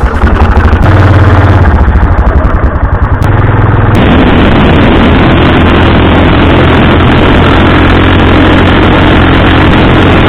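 Small engine running steadily, very loud and overdriven; the sound shifts about four seconds in and then holds steady.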